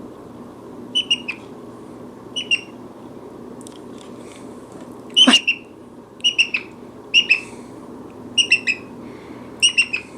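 Brown-headed parrot giving short, sharp chirping calls about once a second, the loudest about five seconds in.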